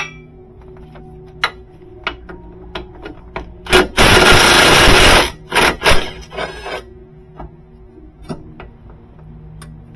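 Milwaukee M18 FUEL 3/8-inch compact cordless impact wrench hammering on a suspension bolt to loosen it: one loud run of about a second and a half a few seconds in, then several short bursts. Light clicks of the tool and socket being handled come before and after.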